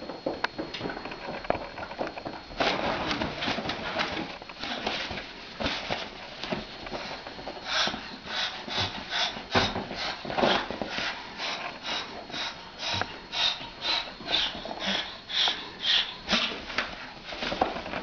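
Moluccan cockatoo hissing at a cat in a threat display: short breathy huffs that become a fast regular series, about two or three a second, from about eight seconds in.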